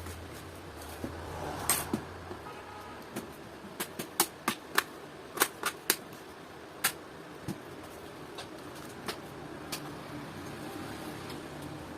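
Sharp clicks and taps from a laptop being worked on while its replacement keyboard is fitted, irregular and about fifteen in all, most of them close together between about four and seven seconds in, over a faint steady hum.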